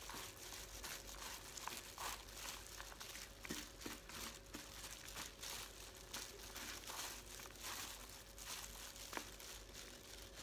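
Clear plastic food-prep gloves crinkling and rustling as hands knead and toss a salad mixed with fried beans and peanuts, with a faint moist squish and crunch.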